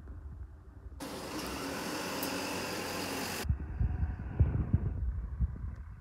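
Outdoor rain ambience. A low rumble gives way about a second in to a loud, steady hiss of rain, which cuts off abruptly a couple of seconds later. Low, irregular thumps follow.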